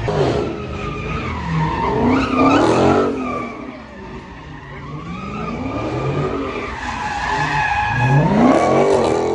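A car spinning its tires in a burnout, tires squealing in long held tones while the engine revs up and down. It is loudest about two to three seconds in and again near the end.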